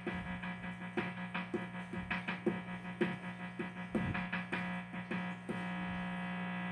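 Steady amplifier buzz with many overtones, with an electronic keyboard's short percussive beat pattern through the amp on top, several hits a second; the beat stops about a second before the end, leaving the buzz alone.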